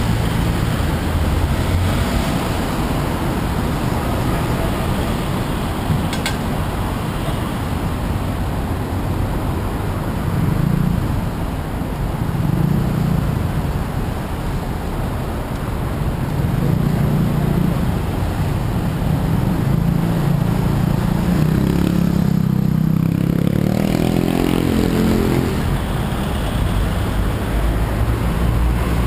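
Busy city street traffic: cars and motorbikes passing in slow waves. Late on, one vehicle engine accelerates, its pitch climbing for about two seconds.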